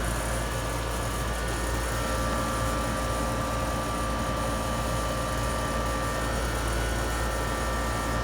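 A 16-year-old Trane central air conditioner's outdoor unit running steadily, its compressor humming under the condenser fan, while it is being charged with R22 refrigerant.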